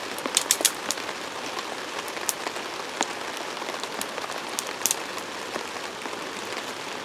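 Small wood campfire crackling, with irregular sharp pops over the steady rush of a flowing creek.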